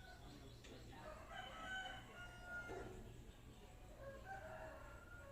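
A rooster crowing faintly twice, each crow about a second and a half long.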